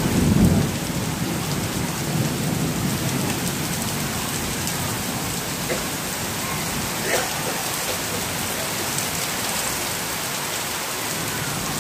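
Heavy rain pouring steadily, with a low rumble in the first second or so and a single sharp tap about seven seconds in.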